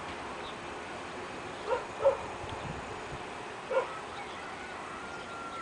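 An animal, dog-like by its calls, calling three times in short pitched calls over a steady background.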